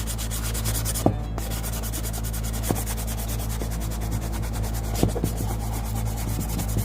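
Sandpaper rubbed by hand in quick, even strokes along the edge of a small wooden block, sanding off the overhanging decoupage napkin paper.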